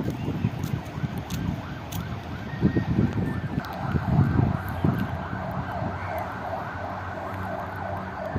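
Wind buffeting the microphone, and from about a second in a distant siren whose pitch rises and falls quickly, over and over.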